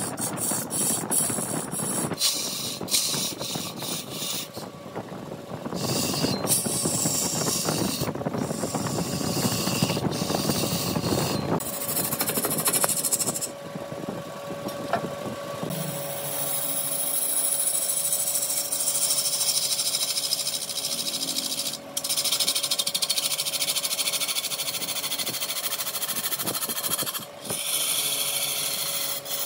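Large wood lathe running while a turning tool cuts the spinning wood, in several short stretches that change abruptly. From about halfway on there is a steady hum under the hiss of the cut.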